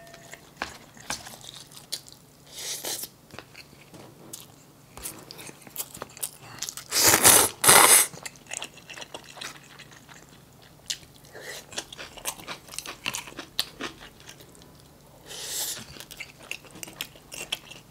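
Close-miked chewing of fried rice, with many small wet clicks and mouth sounds. About seven seconds in come two loud, noisy slurps as buckwheat noodles are sucked up from chopsticks.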